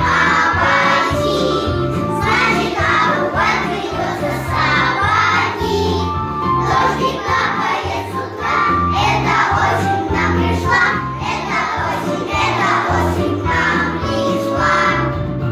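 A group of young children singing a children's song together over an instrumental accompaniment with a steady bass line.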